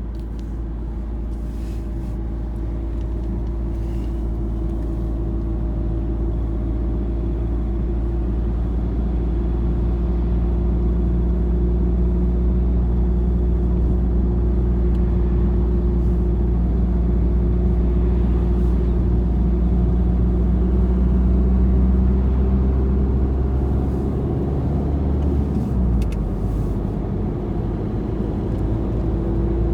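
Steady low rumble of a motor vehicle running, with a few steady tones that drift slowly in pitch; the rumble shifts near the end.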